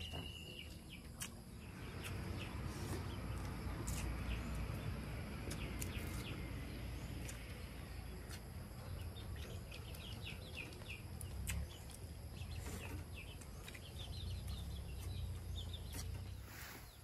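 Rural outdoor ambience: a steady low rumble with scattered short bird chirps, including a quick run of repeated chirps about two-thirds of the way in.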